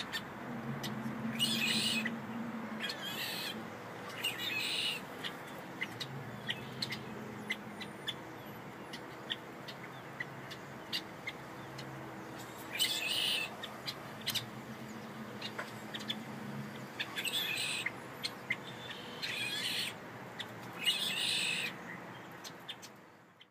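Birds calling: about seven short calls, a few close together near the start and more in the second half, over a steady low background hum. The sound cuts off suddenly near the end.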